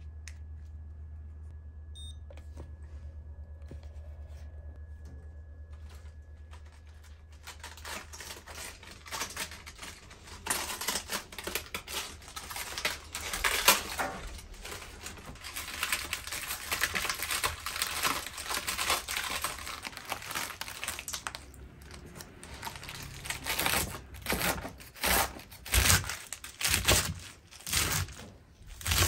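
Low steady room hum for several seconds, then cabbage leaves being torn apart and rustled at a kitchen sink. Near the end, a kitchen knife shreds cabbage on a wooden cutting board in short bursts of cutting strokes about a second apart.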